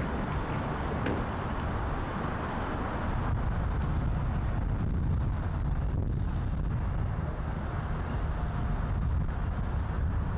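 Steady low outdoor rumble with a lighter hiss above it, and a faint click about a second in.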